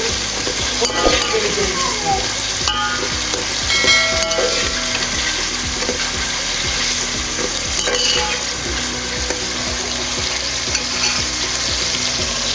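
Prawns frying in hot oil with browned onions in a metal pot, a steady sizzle, while a metal spoon stirs them, knocking against the pot a few times in the first few seconds.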